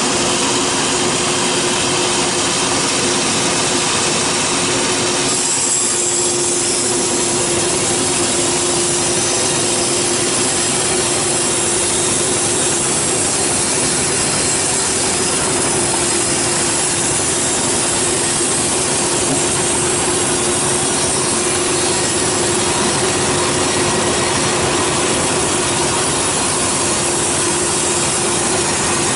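Large band sawmill blade cutting lengthwise through a teak log, a steady sawing sound with a constant low hum underneath that shifts slightly about six seconds in.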